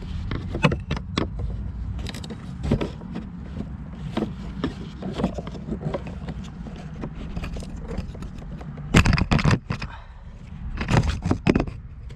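Clicks and scrapes of plastic quick-release clamps and fuel hoses being worked loose from a diesel fuel filter, with two louder bursts of scraping and rattling near the end, over a steady low rumble.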